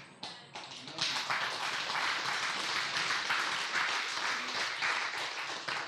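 Congregation applauding: a few scattered claps that swell within a second into steady applause from many hands, tapering off at the end.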